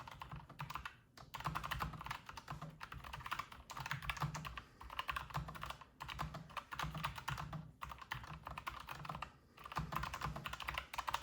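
Typing on a Logitech G915 X low-profile mechanical keyboard with linear red switches: quick runs of soft keystroke clicks, broken by short pauses between bursts.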